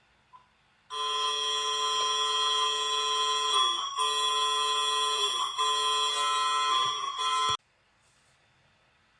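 Emergency Alert System alarm tone: a harsh, steady multi-tone alert. It starts about a second in, holds for about six and a half seconds, and cuts off suddenly.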